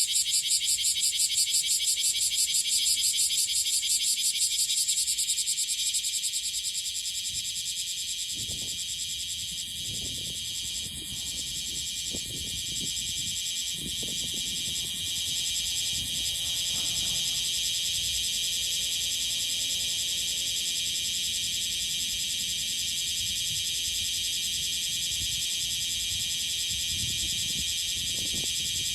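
Bear cicada (Cryptotympana facialis) singing: a loud, high rasping buzz that pulses rapidly for the first few seconds, then settles into a steady drone.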